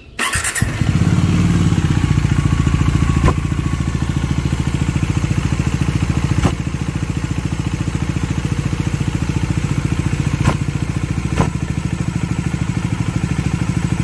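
Bajaj Dominar 400's single-cylinder engine cranked on the starter, catching within a second and then idling with an even, rapid pulse, with a few sharp knocks standing out over it. The idle carries the strange engine noise that the owner is still investigating on a bike with under 1000 km.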